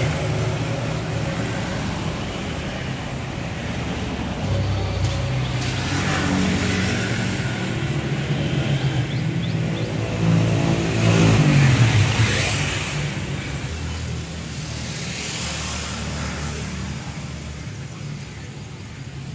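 Road traffic: motor vehicles running and passing one after another, the loudest pass about twelve seconds in, then fading.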